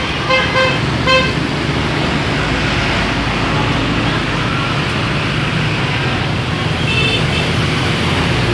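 Bus 'telolet' musical horn playing a quick run of pulsed notes in the first second, then the bus engine and road noise as it passes in steady traffic. A short, higher horn toot sounds about seven seconds in.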